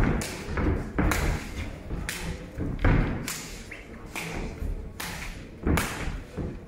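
Boxing gloves striking a trainer's focus pads during pad work: an uneven run of sharp smacks, often two or three in quick succession.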